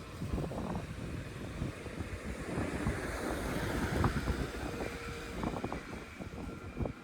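Wind buffeting the microphone over street traffic, with a vehicle passing that swells and is loudest about four seconds in.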